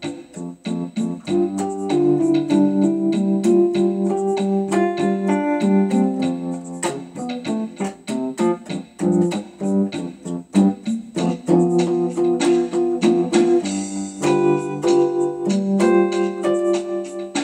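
Piano music: full chords under a steady stream of quick notes.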